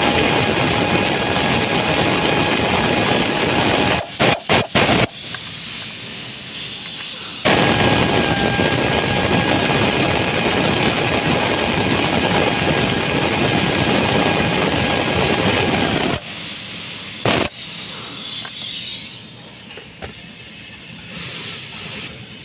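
Compressed-air blow gun hissing in two long blasts with a faint whistle, with a few quick puffs between them and one more near the end.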